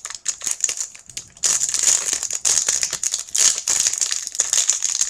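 Foil booster-pack wrapper crinkling as it is handled, a dense run of crackles that gets louder about a second and a half in.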